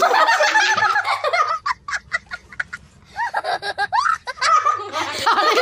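Loud laughter: a man laughing hard, then a young child's high-pitched laugh in quick repeated bursts.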